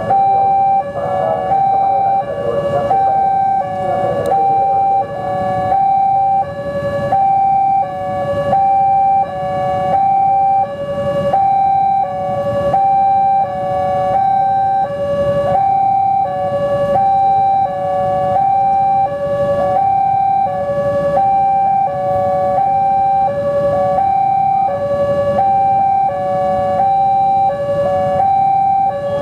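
Railway level-crossing alarm, two alarm units sounding together: an electronic siren alternating between a high and a low tone, repeating steadily without a break.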